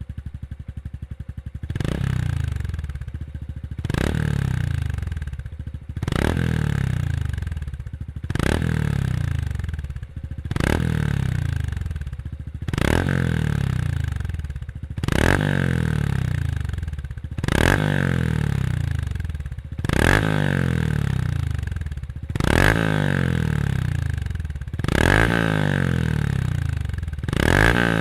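Honda CT125's air-cooled single-cylinder engine through a Moriwaki stainless full exhaust system. It idles for about two seconds, then the throttle is blipped about a dozen times, roughly every two seconds, each rev rising sharply and falling back toward idle.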